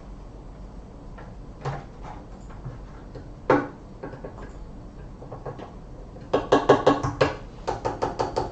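Plastic clicks, knocks and rattling from handling a cordless pressure washer and its hose fittings: a couple of single knocks, then a quick run of clattering clicks over the last couple of seconds. The washer's motor is not running.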